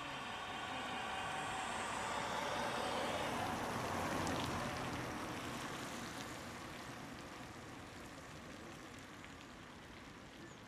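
Toyota Prius hybrid fitted with an artificial pedestrian-warning sound passing by slowly. Several steady synthetic tones and tyre hiss grow louder to a peak about four seconds in, then fade away as the car moves off.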